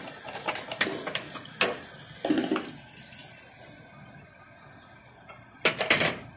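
Small blade scraping the coating of an LED TV backlight strip, rapid irregular scratching and clicking, done so a replacement LED can be connected; it stops about three seconds in. A short loud burst of noise comes near the end.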